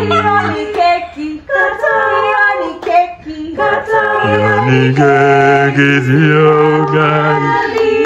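A group of women's, men's and children's voices singing a song together in harmony, unaccompanied.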